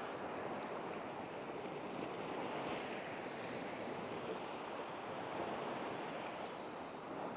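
Steady soft rushing noise with no speech or music.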